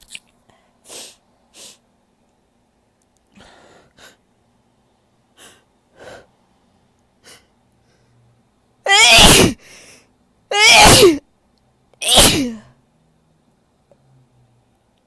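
A woman sneezing loudly three times in quick succession, about a second and a half apart.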